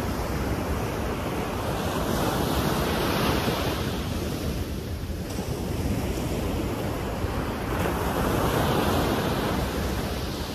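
Ocean surf washing up on the beach, swelling louder about two seconds in and again around eight seconds, with wind rumbling on the microphone.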